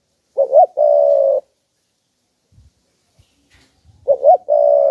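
Spotted dove cooing twice: each call is a couple of short rising notes followed by one long, slightly falling coo, the second call starting about four seconds in. A few faint low knocks come between the calls.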